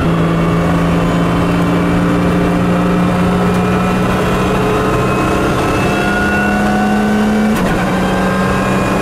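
Lotus Exige Cup R's supercharged V6 accelerating hard through the gears, heard from inside the cabin. An upshift right at the start drops the revs, the engine note then climbs steadily, and a second quick upshift comes about seven and a half seconds in.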